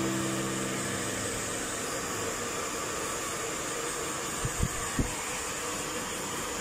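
Handheld hair dryer blowing steadily, a constant airy rush, with three short low thumps about halfway through.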